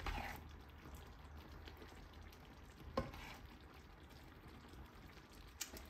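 A metal spoon scooping thick chicken curry from a frying pan onto rice in a bowl, with light clinks about three seconds in.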